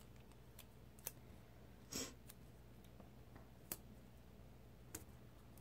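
Near silence broken by a few faint paper clicks and crinkles as small planner stickers are peeled from their backing sheet and pressed onto the pages; the clearest, with a short rustle, comes about two seconds in.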